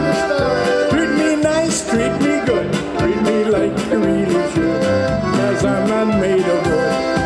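Live polka band playing: accordion with electric keyboard over a steady beat.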